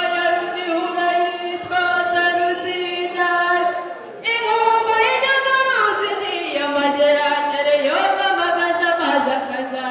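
A girl's voice singing unaccompanied through a microphone and PA, holding long notes that slide between pitches, with a brief break just before four seconds in.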